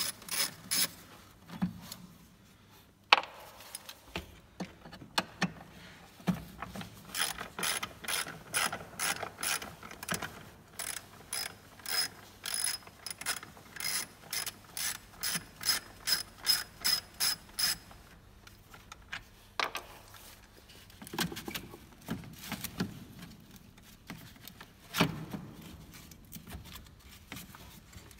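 Hand socket ratchet clicking as it works bolts on a car's fuel filter housing, in short bursts and then a long even run of about three clicks a second. A single sharp knock comes about three seconds in, and near the end there are scattered knocks of parts being handled.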